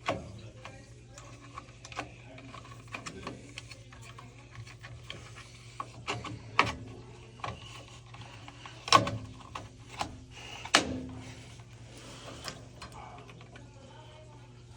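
Scattered clicks and knocks of tools and small metal parts being handled while working on a gas water heater's pilot and burner assembly, a few of them sharper, over a steady low hum.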